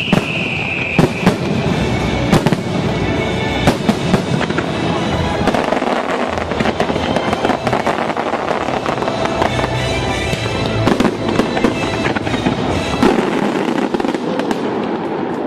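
Fireworks going off in quick succession: sharp bangs of bursting shells over a dense crackle, with show music underneath. The deep low part drops away about two seconds before the end.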